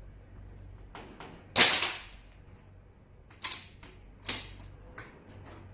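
A Gamo PCP air rifle fires once, a sharp crack about a second and a half in. Two lighter sharp clicks follow a couple of seconds later.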